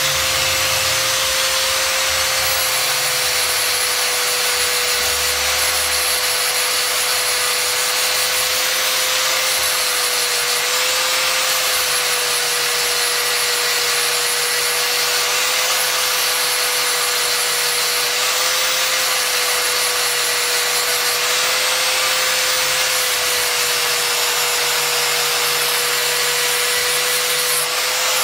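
Handheld angle grinder with a sanding disc running continuously against a wooden knife handle, shaping it: a steady motor whine that sags slightly now and then under load, over a constant rasping hiss of abrasive on wood.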